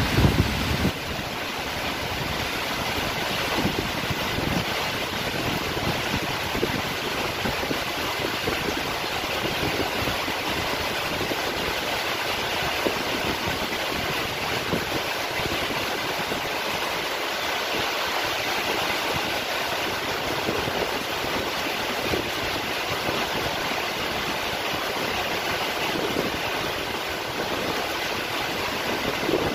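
Steady rain falling, an even hiss with irregular low rumbling underneath.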